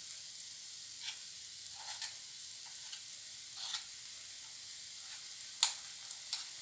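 Hot oil sizzling steadily as hush puppy batter deep-fries, with a few short sharp clicks, the loudest a little before the end.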